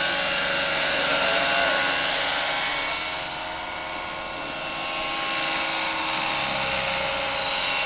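Radio-controlled scale model of an SA-319B Alouette III helicopter flying past low: a steady high whine of rotors and drive with many steady tones, loudest a second or two in, easing off around four seconds, then building again as it comes back.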